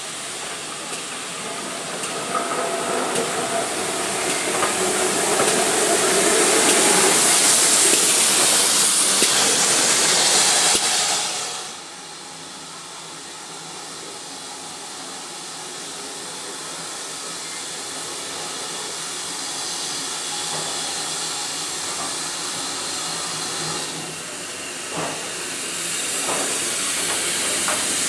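GWR 5700 class pannier tank steam locomotive No. 3738 working an auto-train, giving a loud, steady hiss of steam that builds and then cuts off abruptly about twelve seconds in. A quieter hiss follows and grows as the engine draws near, with a few metallic knocks as it rolls past near the end.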